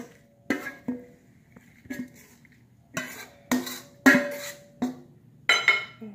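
Metal spoon knocking and scraping against a stainless steel mixing bowl as food is scooped out, about nine irregular clinks, the bowl ringing briefly after each.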